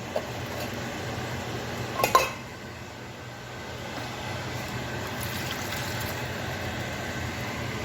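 Green beans being poured into a cooking pan over a steady hiss, with a short clink of metal about two seconds in.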